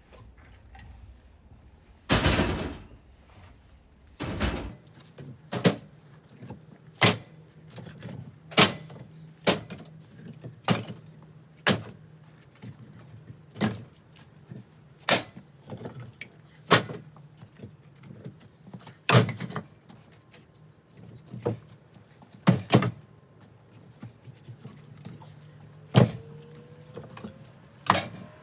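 A run of sharp knocks or blows, about one every second and a half, each ringing briefly; the first is longer than the rest.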